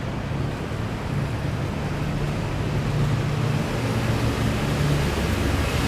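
Low, steady engine rumble of a nearby vehicle or traffic, growing louder about two seconds in and staying up.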